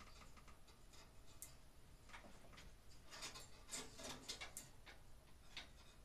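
Faint scattered ticks and clicks of small hardware being worked by hand at the ceiling, thickening into a quick run of clicks about halfway through.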